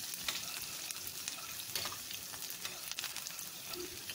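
Sliced onions sizzling in hot ghee in a frying pan, a steady hiss with frequent sharp crackles, as they fry toward golden brown for a tarka.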